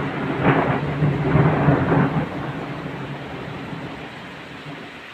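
A roll of thunder that swells in the first half second, peaks for a second or two, and fades slowly away, over the steady hiss of falling rain.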